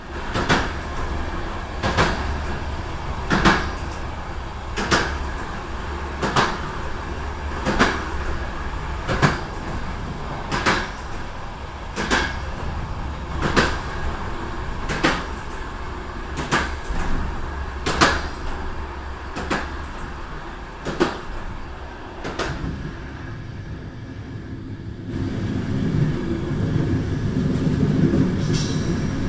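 Passenger train heard from its rear door: wheels clacking over rail joints about once every one and a half seconds over a steady running rumble. About 25 seconds in, the clacks stop and a louder, deeper rumble takes over.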